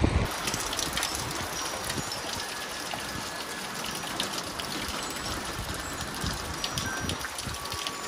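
Wind rushing through tall conifer trees: a steady hiss with many small scattered ticks.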